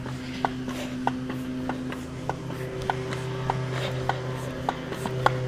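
Pogo stick bouncing on a concrete driveway: a sharp spring-and-foot knock on each landing, about nine evenly spaced bounces a little under two a second, over a steady low hum.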